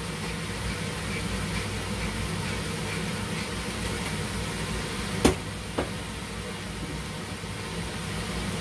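Steady kitchen cooking noise, a low hum and hiss while pumpkin and vegetables sweat in a pot on the hob. A sharp knock comes about five seconds in, and a lighter one just after.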